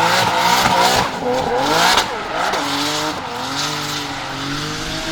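Nissan Silvia S14 with an RB26DET 2.6-litre straight-six turbo engine drifting: the engine revs rise and fall while the tyres squeal for about the first two seconds. Then the squeal stops and the engine carries on quieter, its revs gliding more gently.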